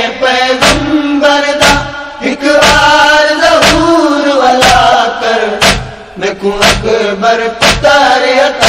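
Chanted noha, a Shia mourning lament: voices chanting a drawn-out refrain over a steady beat about once a second.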